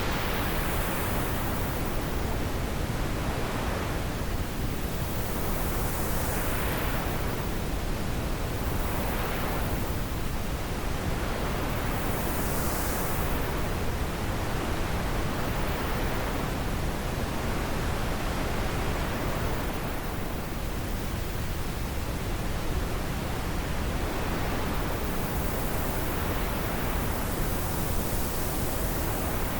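Wind blowing as a steady rushing hiss, with gentle gusts that swell and fade every few seconds.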